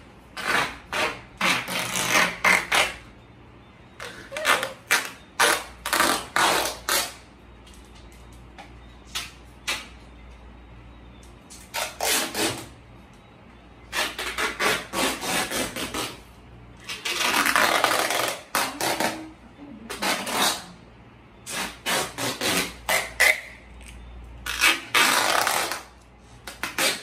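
Duct tape being pulled off the roll and wrapped around a person, in many short pulls and a few longer ones, the longest lasting about two seconds past the middle.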